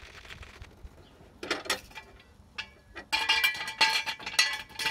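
Steel jack stand being set in place under the car, with sharp metallic clinks and ringing from about three seconds in. Before that, faint light clicking and scraping from the scissor jack's crank.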